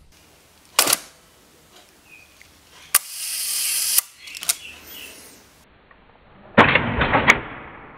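Mamiya RB67 medium-format camera firing, giving sharp mechanical clicks of mirror and shutter: one click, then two more about a second apart with a hiss between them. Near the end comes a loud cluster of deeper, duller clicks, the shutter sound slowed down in a replay.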